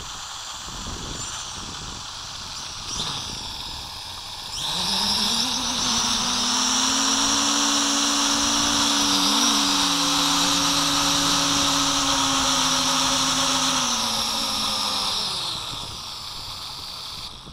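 Small Hubsan H507A quadcopter's motors and propellers whirring while held in the hand: the pitch rises about four seconds in, holds a steady high whine with a brief wobble midway, then winds down near the end as the motors are shut off.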